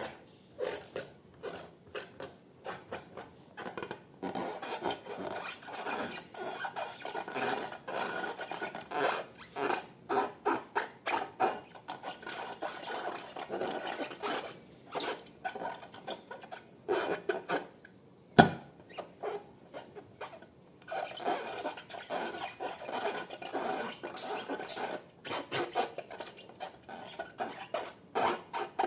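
Slime being mixed and worked by hand: a long run of short rubbing, sticky strokes, several a second, with a pause partway through. One sharp click about eighteen seconds in is the loudest sound.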